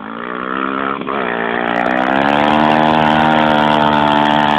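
Single-cylinder four-stroke trail motorcycle engine revving up about a second in, then holding high revs steadily as the bike is pushed through water on a muddy trail.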